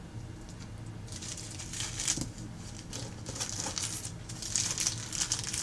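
Small clear plastic packets crinkling as they are handled, a bag of sequins put down and a bag of small metal charms picked up. Faint at first, with the rustling getting busier near the end.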